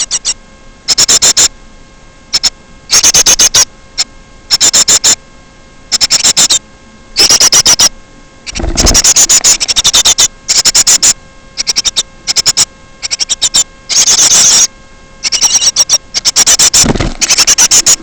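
Small bird calling in quick chattering bursts, each a rapid run of high clicks, repeated every second or so, over a faint electrical hum.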